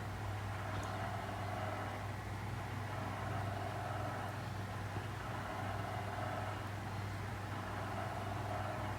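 Steady low hum of room background noise, even throughout, with no handling sounds.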